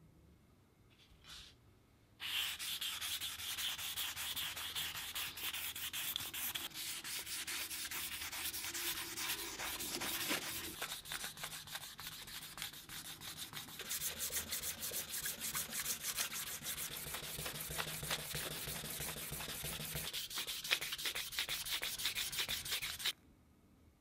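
Fine P2000 wet sandpaper rubbed fast back and forth by hand over a primed metal drill body: wet-sanding the primer coat smooth. The scratchy strokes start suddenly about two seconds in and stop abruptly near the end.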